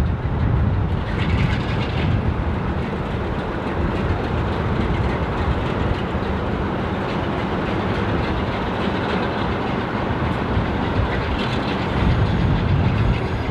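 Steam train moving along the track: a steady rumble of the locomotive and its coaches, a little louder near the end.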